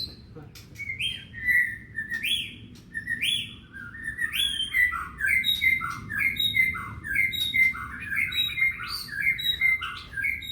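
White-rumped shama singing: short, clear whistled notes, many sweeping upward, that become a rapid run of repeated phrases about four seconds in.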